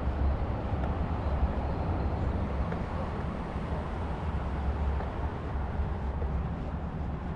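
Steady city street noise: a low rumble of traffic under an even hiss.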